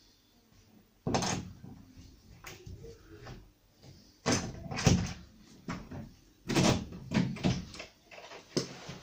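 Fischer metal hollow-wall-anchor setting pliers worked by hand on an M5 cavity anchor in plasterboard: a loud clunk about a second in, then a string of sharp metallic clicks and clunks as the tool is squeezed and the anchor is drawn tight behind the board.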